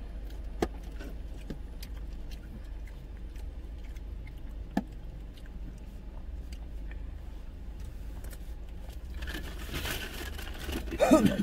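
Clear plastic takeout container clicking and crackling as it is handled, over a steady low hum in a car's cabin. A brief rustle comes near the end, then a short burst of voice.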